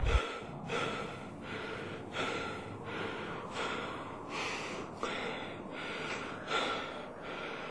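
A man panting heavily, out of breath after running: quick loud breaths in and out, a little faster than one a second.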